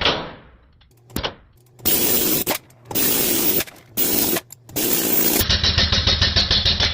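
Pneumatic air hammer with a valve-guide driver punching old valve guides out of a Toyota 3VZ-E aluminium cylinder head. It fires in four short bursts, then runs in a steady rapid hammering from about two-thirds of the way in.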